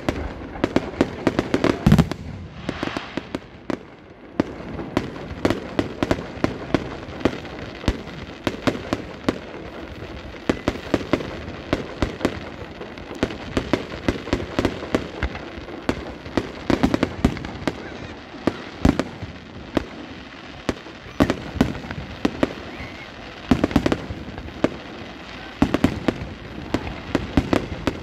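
Aerial fireworks display: a dense, irregular run of shell bursts, bangs and crackles, with a brief lull about three seconds in.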